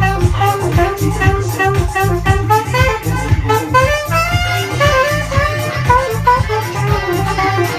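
Music with a steady, heavy bass beat and a quick melodic lead line of short notes, played loud.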